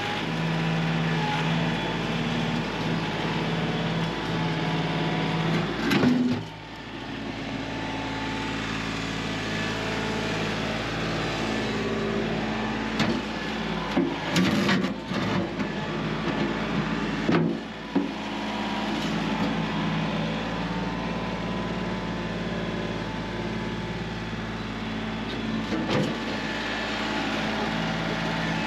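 Kioti CK3510SE compact diesel tractor engine running steadily, with a few short knocks and clunks over it.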